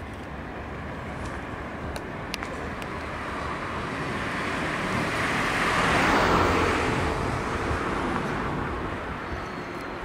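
A car passing close by on the street, its tyre and engine noise swelling to a peak about six seconds in and then fading, over steady background traffic.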